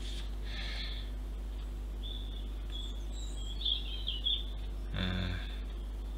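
A few short bird chirps in the middle, heard faintly over a steady low hum; a brief soft noise about five seconds in.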